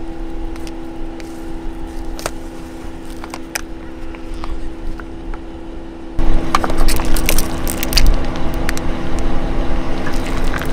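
A car tyre pressing on and crushing a plastic tub of hair gel: scattered clicks and creaks of the plastic, then about six seconds in a sudden, louder run of crackling and cracking as the tub splits and the gel squeezes out. The idling car hums steadily underneath.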